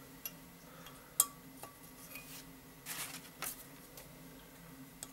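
Light metal clinks and a brief scrape as a bucket tappet is worked out of its bore in a Lexus LS400 cylinder head with a metal rod. There are a few sharp clinks, the loudest about a second in, and a short scraping about three seconds in.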